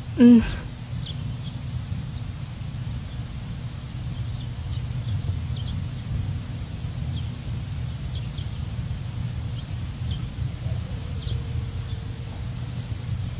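Steady, high, pulsing trill of crickets or similar insects over a low outdoor rumble, with faint scattered chirps. A short, loud sound with a falling pitch comes just after the start.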